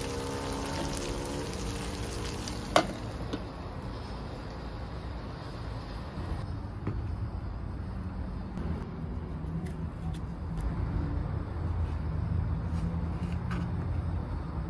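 Koofteh meatballs sizzling as they fry in oil in a pan, broken off by a sharp click about three seconds in. After that a low steady rumble, with a light knife tap on a wooden cutting board near the end.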